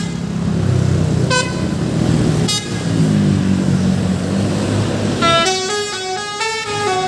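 Indonesian multi-tone 'telolet' bus horn: two short toots over a bus engine's low running, then near the end a quick melody of stepping horn notes.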